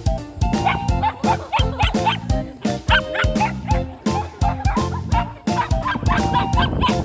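Upbeat background music with a steady drum beat. Dogs bark and yip several times over it.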